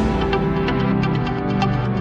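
Electronic background music with a steady beat and sustained synthesizer chords.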